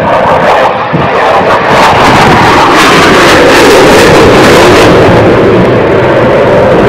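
Military fighter jet flying a display pass, its jet engine noise very loud and steady, building over the first two seconds.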